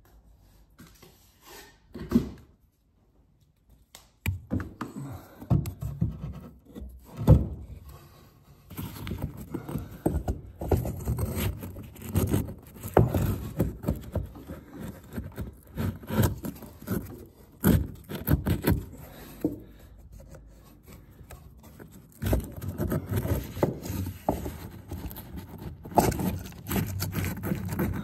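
Bricks being pushed and wedged by hand into a gap in a brick wall: irregular scraping of brick against brick and mortar, with many sharp knocks, starting after a mostly quiet first few seconds.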